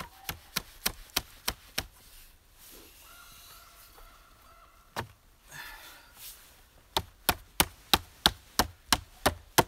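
Wood knocking on wood: a notched piece of stripped timber being tapped in as a wedge between the legs of a pole table. Sharp knocks about three a second, a run of about six near the start, one on its own midway, and about nine more near the end.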